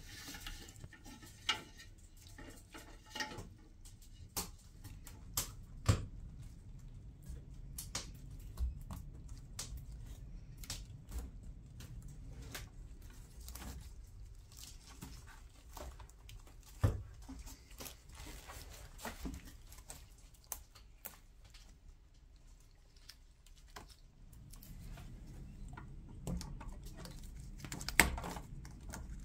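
Irregular clicks, crackles and rustles of soaked wicker rods being handled and woven into wicker basketwork, with a few sharp snaps, one of them near the end as hand cutters trim rod ends.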